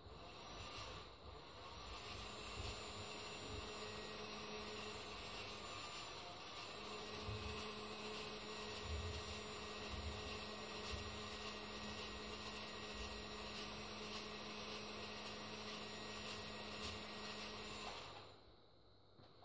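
Small electric motor of a remote-controlled toy tower crane running steadily, with a brief pause about six seconds in, stopping near the end.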